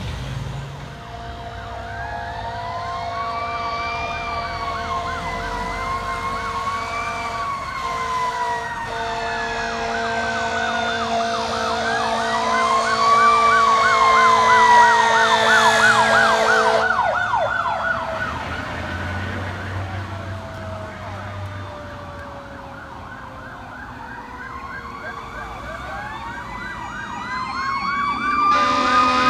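Fire truck sirens: an electronic wail rising and falling over a rapid yelp, loudest about midway and then fading away. Near the end another siren winds up and a horn blares as the next fire truck comes closer.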